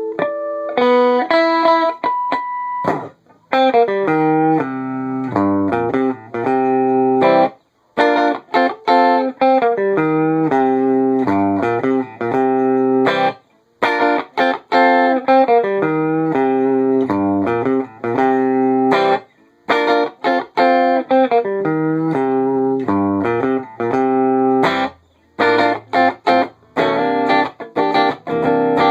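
Clean, warm electric guitar played through a Wangs VT-50 amplifier on the neck pickup at half gain: melodic phrases of single notes and chords, broken by short pauses.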